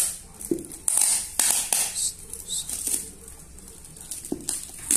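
Brown packing tape being peeled off a parcel-wrapped cactus pot, with its paper wrapping rustling and crinkling: several short, hissy rasps, the loudest about a second in.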